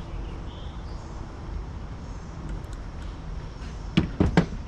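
Three sharp metal clicks close together near the end, over a low steady rumble, as a nut and bolt are fitted on a camera mount.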